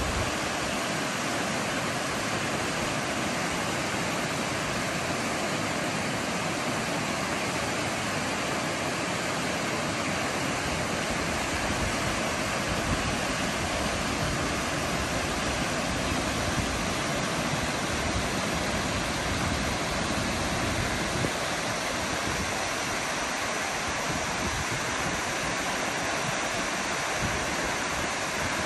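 Steady rush of a fast, shallow river tumbling over rocks in white-water riffles.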